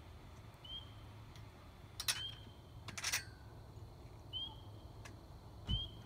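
An animal's short, high chirp, rising briefly, repeated about every one to two seconds over a faint low hum. A few sharp clicks about two and three seconds in are the loudest sounds, and a dull low thump comes near the end.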